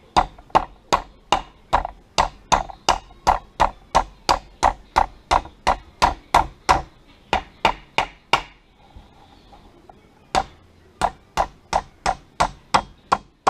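Small hammer tapping steadily, about three strikes a second, driving a trigger group pin through a rifle's lower receiver. The taps pause for about two seconds, then resume at the same pace.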